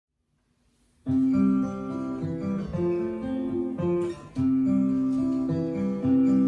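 After about a second of silence, an acoustic guitar starts playing, plucking and strumming chords as the instrumental introduction to a song.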